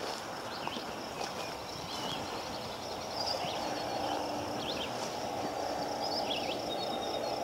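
Rural outdoor ambience: scattered short bird chirps over a steady high insect drone and a steady rushing background noise, which grows a little louder about three seconds in.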